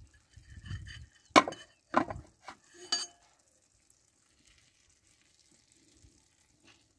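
Beans sliding off a plate into a frying pan of tomato and onion, then a metal spoon clinking sharply about four times before quieter stirring in the pan.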